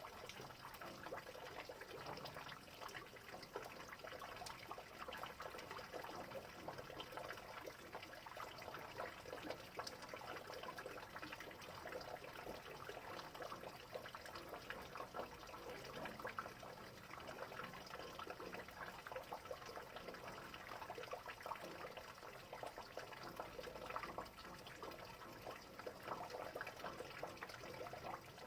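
Steady rain falling, a dense patter of countless drops and drips.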